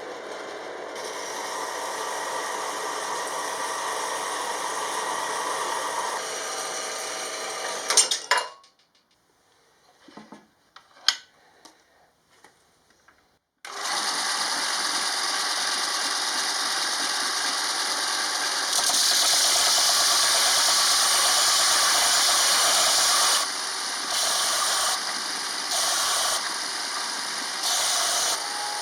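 Workshop power tools in use. One machine runs steadily and stops about eight seconds in, followed by a few clicks and knocks. A steady hissing machine noise then starts, gets louder, and cuts in and out in short spells near the end.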